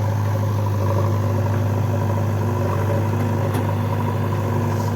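Diesel engine of heavy earth-moving equipment running steadily at a constant speed, with a deep even hum.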